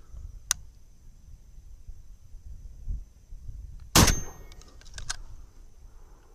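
A single loud shot from a Beretta 1301 Tactical 12-gauge semi-automatic shotgun firing number 1 buckshot, about four seconds in, with a brief metallic ring after it. A sharp click comes about half a second in, and a few lighter clicks follow about a second after the shot.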